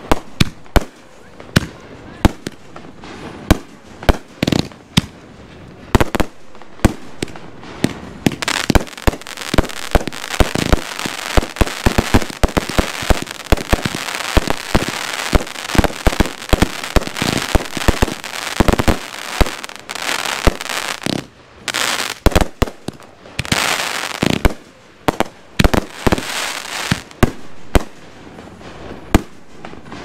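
Consumer aerial fireworks going off in rapid succession: many sharp shots and bangs, with long stretches of dense crackling in the middle and again later on.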